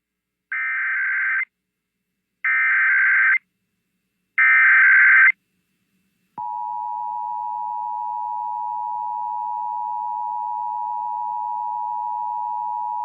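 Emergency Alert System header: three evenly spaced one-second bursts of SAME data tones, then a short pause, then the steady two-tone EAS attention signal starting about six seconds in and holding. This header and tone open a Required Monthly Test alert.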